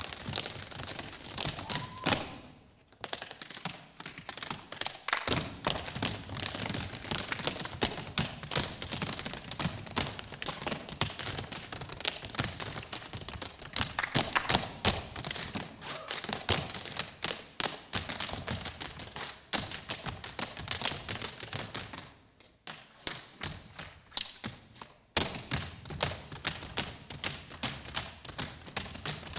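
Tap shoes of a group of dancers striking the stage floor in fast, rhythmic tap steps. The tapping breaks off briefly about three seconds in and thins out for a couple of seconds about 23 seconds in.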